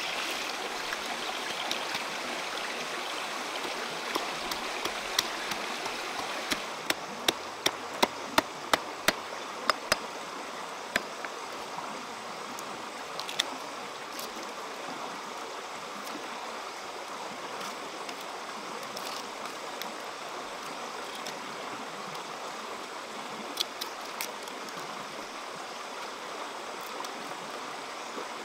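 A steady rushing, water-like hiss, with a run of about a dozen sharp knocks, roughly three a second, from about six to ten seconds in, and a few more near the end.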